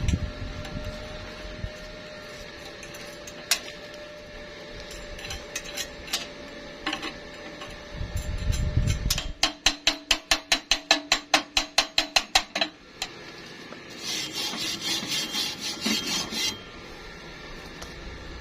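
Metal being worked by hand: a fast, even run of ringing scraping strokes, about five a second for some three seconds, followed after a short pause by a few seconds of crackling hiss, with scattered knocks.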